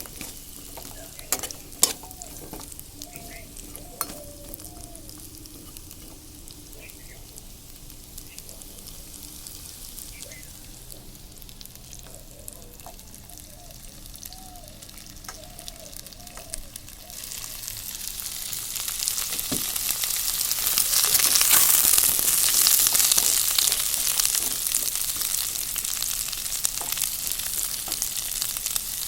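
Papaya pieces frying lightly in oil in a kadai, sizzling steadily, with occasional sharp clicks from stirring. About two-thirds of the way through, the sizzle swells much louder and stays loud.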